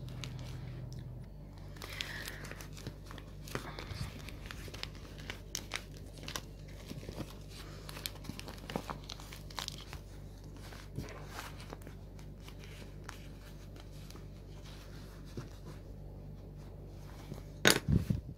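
Clear vinyl and fabric crinkling and crackling as they are crumpled and worked by hand, turned right side out through an opening and pushed into the corners, over a steady low hum. A loud knock comes just before the end.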